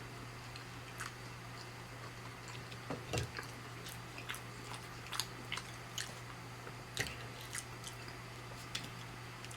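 Close-up eating sounds: a person biting and chewing breaded plant-based chicken, with irregular short crunches, the loudest about three seconds and seven seconds in.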